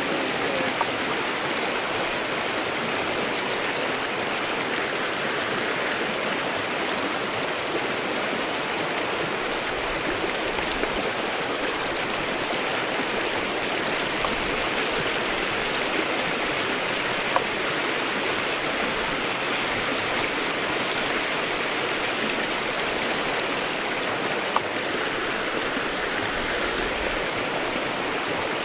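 Shallow mountain creek running over cobbles and small riffles: a steady rushing of water, with two faint ticks in the second half.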